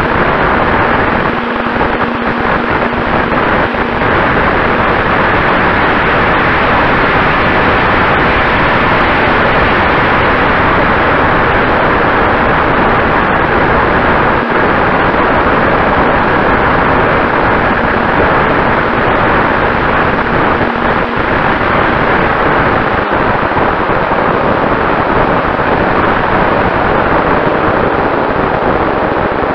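Loud, steady rush of wind and propeller noise heard from a camera mounted on a flying ParkZone T-28 Trojan electric RC airplane, with a faint steady whine underneath.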